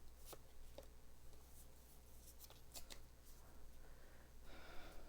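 Near silence with a few faint clicks and rustles of trading cards and a booster-pack wrapper being handled.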